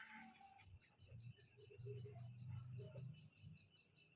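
Cricket chirping in a steady, rapid high-pitched trill that pulses evenly several times a second.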